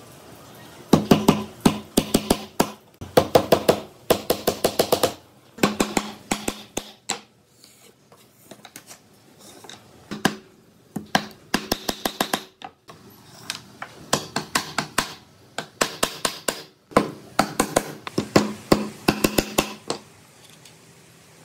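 Hammer driving nails through washers and webbing strap into wooden slats on a workbench, in quick runs of light ringing strikes, about five or six a second, with short pauses between nails.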